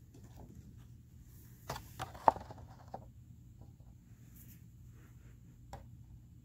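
A few short, sharp clicks and taps from the cards being handled as one card is swapped for the next: a cluster of them about two seconds in and a single one near the end. A faint low hum sits beneath them.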